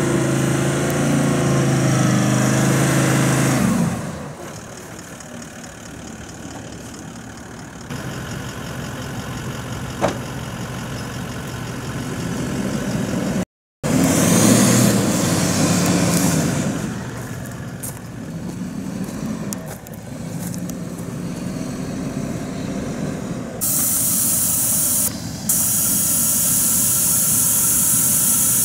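A 4x4 vehicle's engine revving and labouring as it drives through heavy sand. The sound comes in several short clips that cut abruptly, with a brief dead gap about halfway. A steady hiss takes over near the end.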